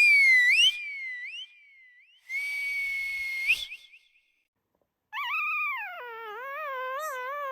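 Whistle sound effects: high swooping slide-whistle glides, then a held whistle note that bends up at its end. After a short pause comes a lower, wavering pitched tone whose pitch wobbles up and down and then drops away near the end.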